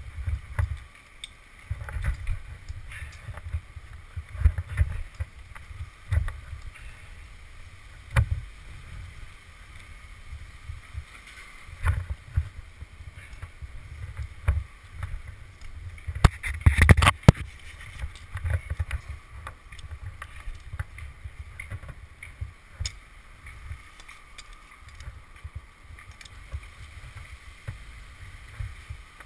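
Climbing noise on a tree trunk: irregular knocks and scrapes from climbing spikes, rope and carabiners against poplar bark, with low rumbling thumps. A loud flurry of knocks and clinks comes a little past halfway.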